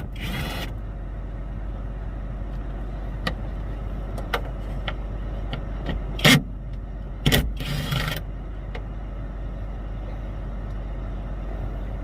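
Scattered sharp clicks and knocks, with a couple of short scraping rattles, from hand work taking apart the sunroof track of a car, over a steady low hum. Two knocks about a second apart, a little past halfway, are the loudest.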